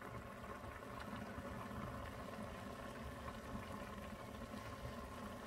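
Broth of mussels and spinach simmering in a stainless steel pan on the hob: a steady low bubbling, with a faint steady hum beneath it.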